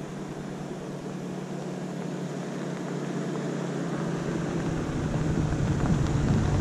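Third-generation Toyota 4Runner running as it drives toward the listener, a steady low engine hum that grows gradually louder as it approaches.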